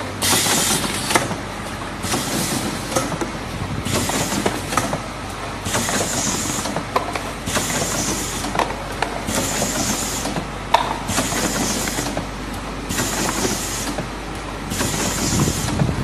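CP-50A automatic turntable cartoning machine running: a steady mechanical clatter with a short hiss of compressed air every second or two as its pneumatic cylinders cycle, and a few sharp clicks.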